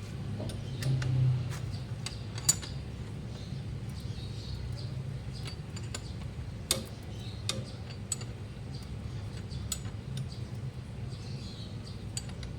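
Irregular sharp metal clicks and clinks of 14 mm and 17 mm wrenches working the scooter's front axle nut and bolt, the sharpest about two and a half and nearly seven seconds in, over a steady low hum.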